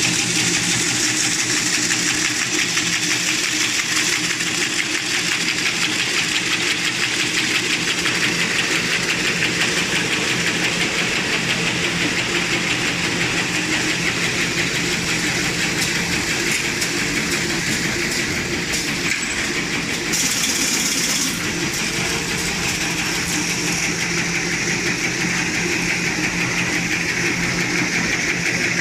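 Automatic paper straw wrapping machine running: a steady, rapid mechanical clatter over a motor hum, with a brief hiss about twenty seconds in.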